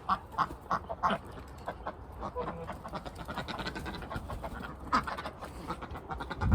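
Domestic ducks quacking, many short quacks one after another, with a low thump right at the end.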